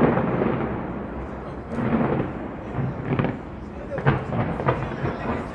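Aerial fireworks shells exploding with deep booms, five or so over a few seconds, some followed by a crackle, over a crowd's voices.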